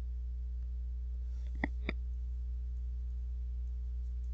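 Steady low electrical hum from the recording setup, with two soft clicks in quick succession about a second and a half in.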